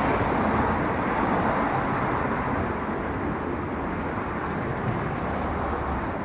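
Steady outdoor urban rumble of distant traffic, fading slowly.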